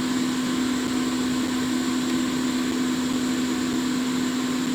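Steady whir of a small electric fan blower on a soldering bench, with a constant motor hum running under it.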